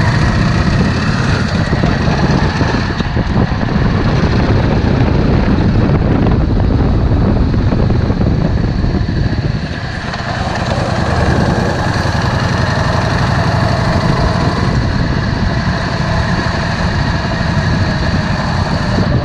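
Yamaha Drag Star 650's air-cooled V-twin engine running steadily, briefly dropping a little in level about ten seconds in.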